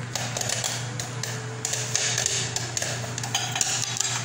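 Popcorn popping in a saucepan with a stainless-steel lid: rapid, irregular pops and ticks against the lid and pan, over a steady low hum.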